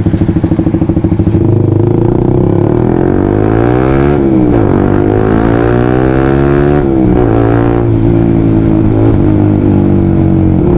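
Honda CBR150R single-cylinder engine through an open Yoshimura Alpha carbon full-system exhaust with the silencer (dB killer) removed, loud. A choppy, pulsing note for the first second or so, then the pitch climbs and drops sharply twice, as when accelerating up through the gears, and settles to a steady drone near the end.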